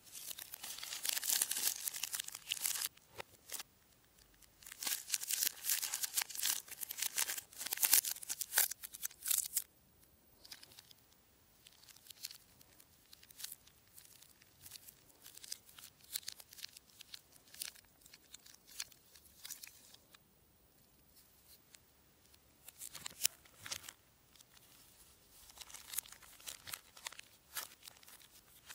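Plastic chocolate-bar wrappers and a Kinder Maxi multipack bag crinkling and rustling as they are handled, in quick bursts. The crinkling is dense and loudest over the first ten seconds or so, then turns into lighter, scattered crackles.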